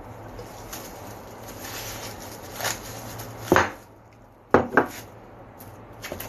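Plastic bag crinkling as it is handled, then three sharp knocks, the last two in quick succession.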